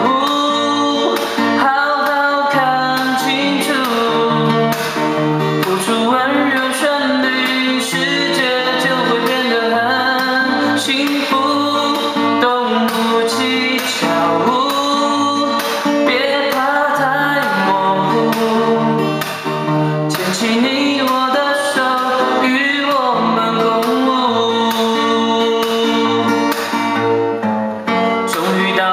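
A pop song with a sung melody over band accompaniment.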